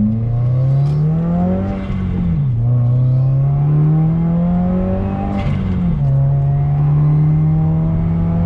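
Turbocharged Subaru WRX flat-four engine accelerating hard through the gears: its pitch climbs, drops at an upshift about two seconds in, climbs again, drops at a second upshift nearly six seconds in, then rises slowly.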